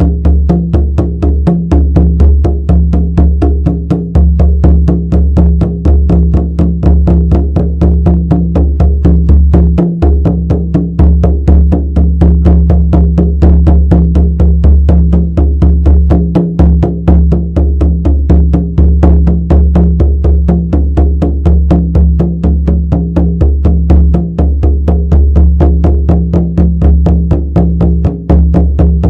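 Shamanic frame drum beaten in a fast, steady, even rhythm, each stroke carrying a deep, resonant low tone.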